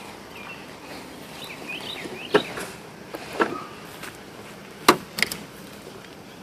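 Four sharp knocks, irregularly spaced over about three seconds, the third the loudest, over a steady outdoor background.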